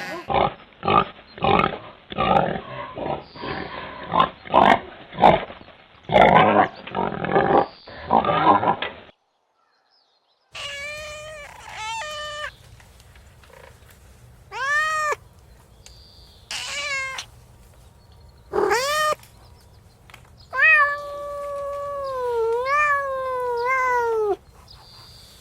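Animal calls: first a rapid run of short calls lasting about nine seconds, then after a brief silence a domestic cat meowing several times, each meow rising and falling in pitch and the last one long and wavering.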